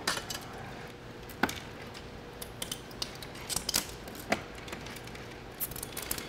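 Scattered small clicks and taps at irregular moments as hands pull wiring harnesses and connectors and handle metal and plastic parts on the opened back of a flat-screen TV.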